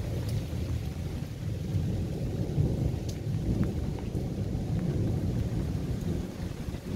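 Thunder as a low, continuous rumble that swells through the middle, with rain falling.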